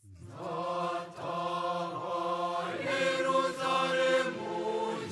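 Background music of choir-like chanted voices holding sustained notes that shift about once a second; it starts abruptly.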